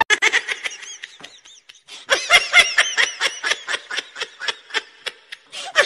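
A person laughing hard in a fast run of short, high 'ha' sounds. The laugh breaks off for a moment about a second in, then carries on.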